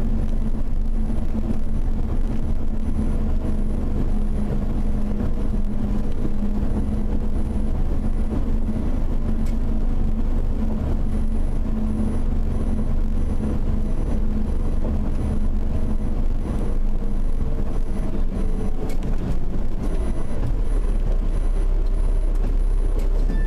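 Steady engine drone and road noise of a car being driven, the engine note easing down a little in the second half.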